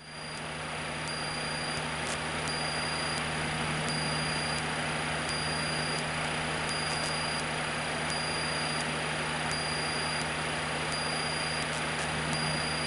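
Cessna 152's four-cylinder Lycoming engine and propeller droning steadily in cruise, heard inside the cabin with a steady hiss; the level swells up over the first second or so.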